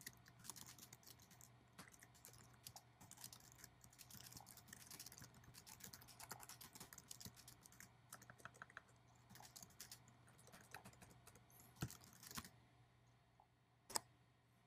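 Faint, fast typing on a computer keyboard, a quick run of key clicks that stops about twelve seconds in, followed by one sharper click near the end.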